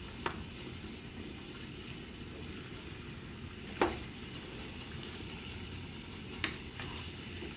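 Cubes of pork skin and fat cooking in a frying pan with a steady low hiss, early in the rendering for chicharrones while the added water is still cooking off. A wooden spoon turning the pieces knocks the pan three times, the loudest knock near the middle.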